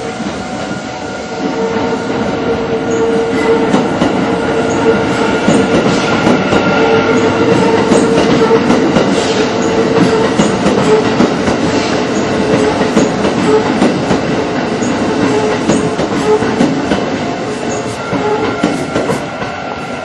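Electric commuter train passing over a level crossing, with wheels clattering over the rail joints; the rumble swells about two seconds in and eases near the end. Under it the crossing's electronic warning bell keeps ringing, at the reduced volume it drops to once the barriers are down.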